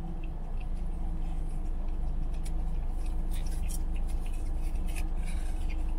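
A small dog licking whipped cream out of a paper cup, with soft wet clicks of tongue and muzzle against the cup, thickest in the middle. Under it runs a steady low hum inside the car.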